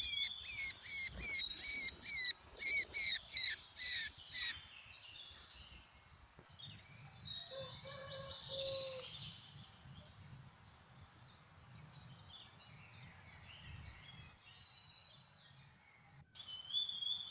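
Bird calling fast, a string of sharp high notes about five a second for the first four seconds, then fainter scattered bird chirps.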